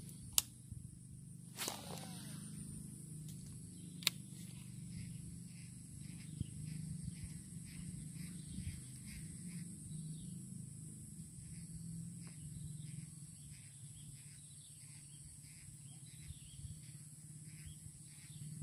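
Outdoor swamp ambience: a steady high-pitched insect drone with a long run of short, evenly spaced chirps over it and a low steady hum beneath. A few sharp clicks sound in the first few seconds.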